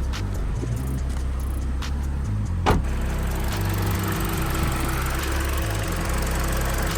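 Car engine idling steadily with the air-conditioning compressor running, a constant low hum. A single sharp knock sounds a little under halfway through.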